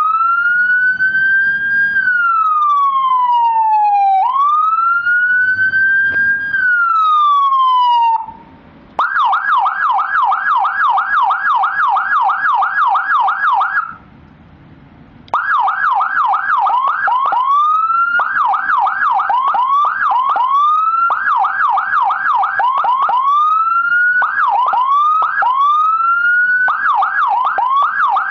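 Whelen EPL electronic siren module sounding through a 200-watt slim siren speaker. It runs through its tones: a slow wail rising and falling twice, a short pause, a fast yelp of several sweeps a second, another pause, then alternating bursts of yelp and short rising whoops.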